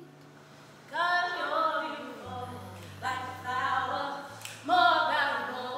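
Voices singing unaccompanied in three short phrases, the first starting about a second in, over a low steady hum.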